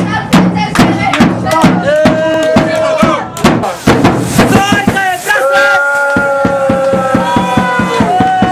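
Music: a song with a fast, steady drum beat under a held melody.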